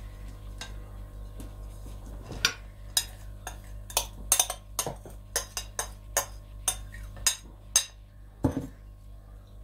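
A metal spoon and plastic kitchenware clinking and tapping: a quick, uneven run of about a dozen sharp clinks over several seconds, then a single duller knock near the end.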